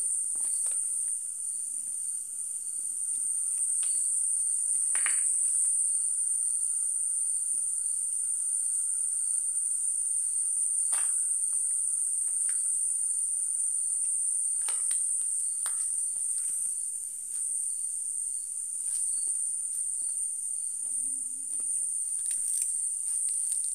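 Crickets chirring steadily at a high pitch, with a fainter, lower insect drone under them. Scattered light clicks and knocks are heard over the top.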